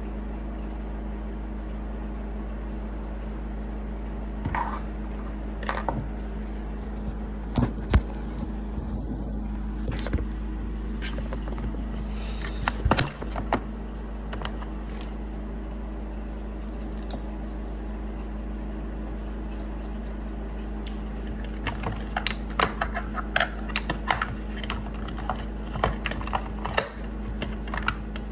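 A steady low hum with scattered sharp clicks and knocks: a few in the first half, and a quick cluster of them near the end.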